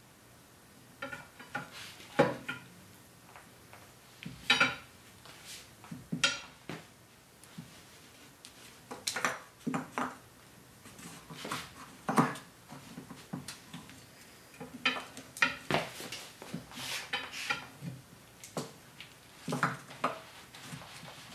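Irregular metal clanks and scrapes of a steel tire bar levering the stiff bead of a low-profile run-flat tire over the wheel rim on a tire changer, a dozen or so knocks spread unevenly through the stretch.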